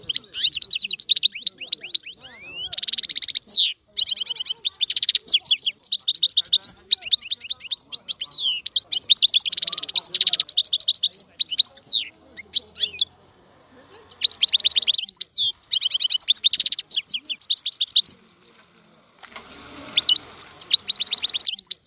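European goldfinch singing: long phrases of fast, high twittering notes and trills, broken by short pauses about twelve and eighteen seconds in. A faint hiss comes up under the song near the end.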